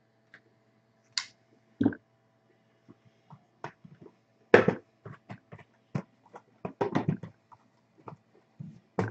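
Shrink-wrapped cardboard trading-card boxes being picked up, slid and set down on a tabletop: scattered soft knocks and taps, the loudest thump about four and a half seconds in and a quick run of taps around seven seconds.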